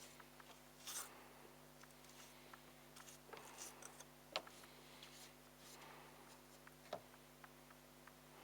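Faint, irregular scratching of a toothbrush scrubbing wet fluff from a heat pump tumble dryer's condenser, with a few short clicks, the sharpest about four seconds in.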